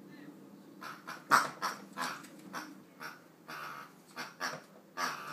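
Pink rubber squeaky toy pig squeaking in short, irregular honks as a Labrador puppy bites and squeezes it, starting about a second in.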